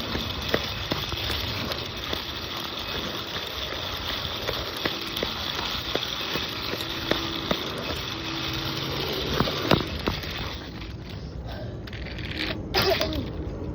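Walking outdoors: a steady crackling rustle dotted with small clicks and taps. It eases off about ten seconds in, and a few sharper knocks come near the end.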